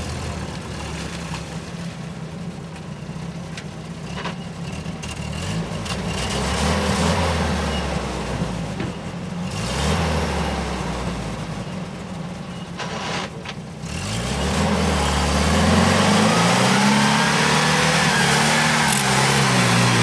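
UAZ off-road vehicle's engine revving up and down under load as it works through mud and up a dirt slope, the pitch rising and falling with each push of the throttle; it gets louder and stays high from about two-thirds of the way in.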